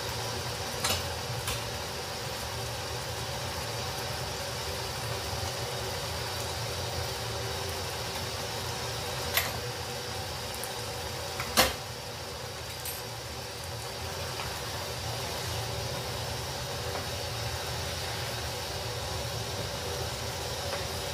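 Curry bubbling in a pan on the stove, a steady bubbling hiss over a faint steady hum. A few sharp clicks break in, the loudest a knock about halfway through.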